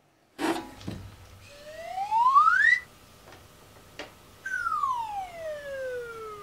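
A click, then a whistle-like tone gliding steadily up in pitch for about a second and a quarter and stopping abruptly; after another click, a similar tone glides down for nearly two seconds.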